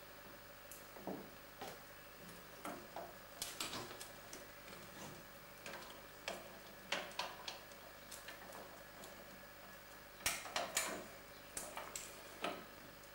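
Irregular small metallic clicks and clinks of hands working with tools and parts on the mower's steering mechanism, in several short clusters, the loudest a little after ten seconds in.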